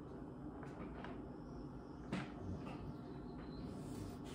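Small fan of a cheap seven-egg incubator running with a faint steady hum just after the incubator is switched on, with a few light clicks and knocks.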